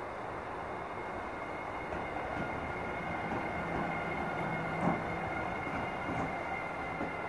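Siemens Vectron electric locomotive running light past at low speed, with a steady hum and a steady high whine. One sharp knock about five seconds in is the loudest moment, with a smaller one a second later.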